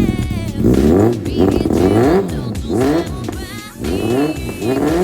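Honda CB750 RC42's air-cooled inline-four exhaust through an aftermarket slip-on silencer, revved in repeated throttle blips at about one a second, each rising and then falling in pitch.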